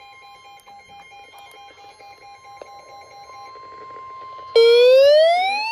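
Weather radio alert: the steady 1050 Hz NOAA Weather Radio warning alarm tone with quick on-off beeping over it, signalling that a warning broadcast is coming. About four and a half seconds in, a loud electronic siren wail starts and sweeps slowly up and down.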